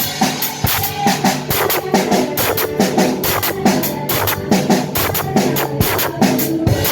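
Music with a drum kit playing a steady beat over pitched instruments.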